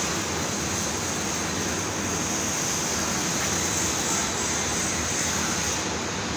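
A welding arc hissing steadily over loud factory background noise, cutting off about six seconds in.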